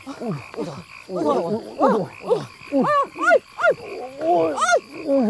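A chorus of frogs croaking at night: many short calls that rise and fall in pitch, repeating and overlapping one another.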